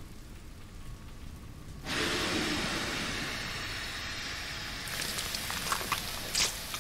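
Anime sound effect of steam pouring off the Colossal Titan's body: a low rumble, then about two seconds in a sudden loud rushing hiss that slowly settles, with a few sharp crackles near the end.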